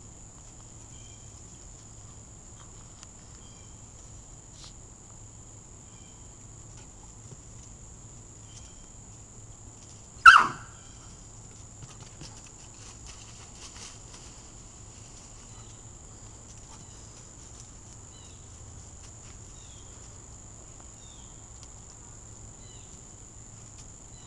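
A dog gives one short, high-pitched yelp about ten seconds in, the only loud sound. Otherwise a quiet outdoor background with faint, sparse insect chirps.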